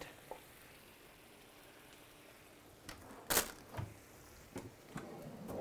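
Kitchen cookware being handled: quiet at first, then one sharp clack about three seconds in, followed by a few lighter knocks.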